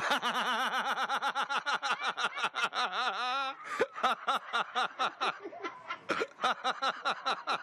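A person laughing hard and without a break, in rapid repeated bursts of about four or five a second, with a short pause a little past halfway.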